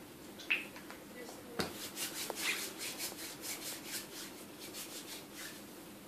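Hands rubbing together in quick, rhythmic strokes: a hand-hygiene rub. A short tap about half a second in and a knock at about a second and a half come before it.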